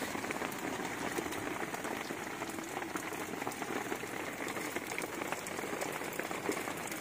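A pot of rice boiling on a camping stove, a steady bubbling crackle, with rain pattering on the tent.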